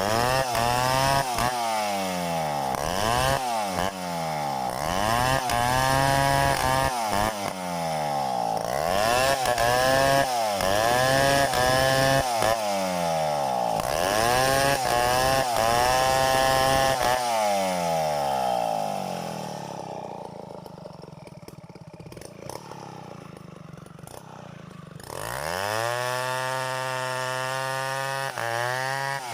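Two-stroke chainsaw revved up and down over and over, about once a second. It drops to a quieter, lower-pitched run for several seconds, then revs up hard and holds at high speed near the end.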